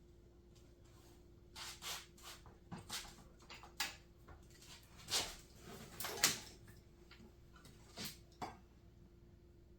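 Irregular knocks and clatters of metal bike parts and tools being handled while the front wheel and axle are fitted to an electric mountain bike, with the loudest knocks about five and six seconds in.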